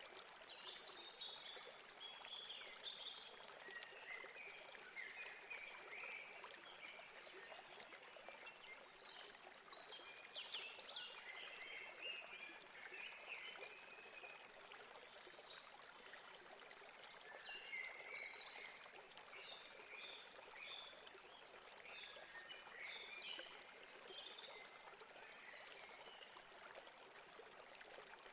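River water running steadily, with small birds chirping in many short bursts throughout.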